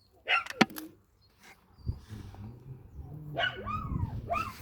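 A dog barking: a sharp, loud bark near the start, then a run of calls that fall in pitch about three seconds in.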